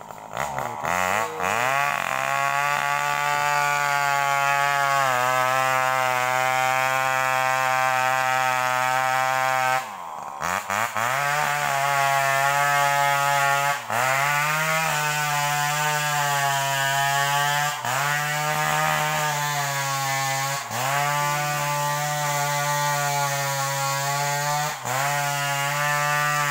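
Two-stroke chainsaw running at full throttle in a felling cut through a large rubber tree, holding a steady high pitch. Near the middle it eases off briefly and revs back up, and several times later its pitch dips for a moment and recovers as the saw works in the cut.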